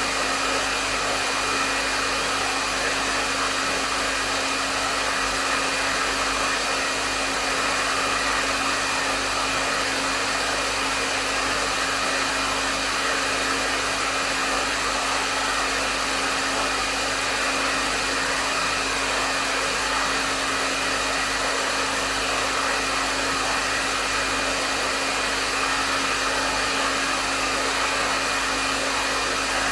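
Hair dryer running steadily on a medium setting: an even rush of blown air with a steady motor hum underneath and a faint whine higher up, unchanging in level.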